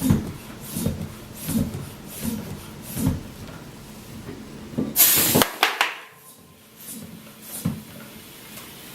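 Floor pump strokes, about one every 0.7 s, charging a Bontrager Airshot tubeless inflator. About five seconds in, a loud half-second blast of air rushes into the cyclocross tire, followed by a few sharp snaps as the tire beads seat on the rim.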